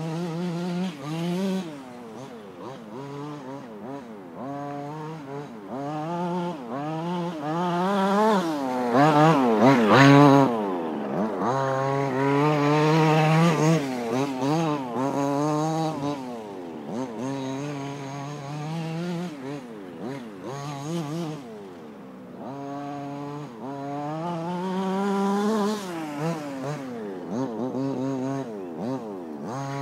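Small two-stroke petrol engine of a 1:5-scale Kingmotor T2000 RC car with a dual-pipe exhaust, revving up and falling back over and over as it is driven through turns. It is loudest about ten seconds in, where the pitch drops sharply as the car passes close.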